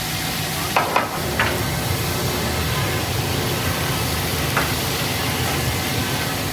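Steady sizzling hiss of fish frying in hot oil, under a low steady rumble, with a few sharp clicks about a second in and one more past the middle.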